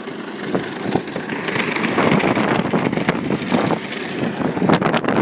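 Power Wheels Dune Racer, a battery-powered ride-on toy, driving in its fast speed: its hard plastic wheels roll and rattle over the ground. The sound grows louder about a second and a half in, with a run of sharp clicks and crackles near the end.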